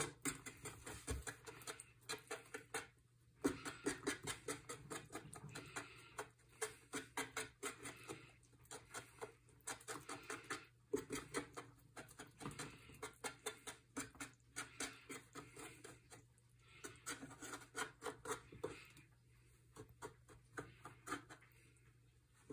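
A fork beating eggs in a well of flour on a wooden board: runs of quick clicking taps, several a second, broken by short pauses.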